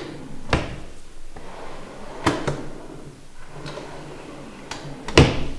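Plywood shop-cabinet drawers sliding open and shut. Each stops with a knock: one about half a second in, another a little past two seconds, and the loudest near the end.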